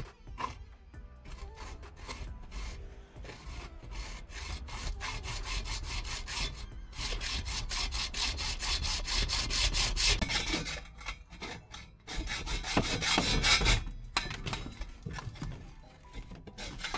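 Hacksaw cutting through a boiler flue pipe to length, in quick back-and-forth strokes that are loudest a little past the middle and ease off toward the end.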